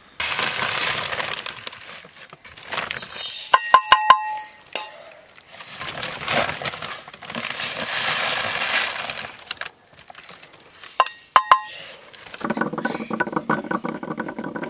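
Metal utensils or cookware clinking, in two quick clusters of a few strikes that each ring briefly, between stretches of rushing hiss. Near the end a steady buzzing, pitched sound comes in.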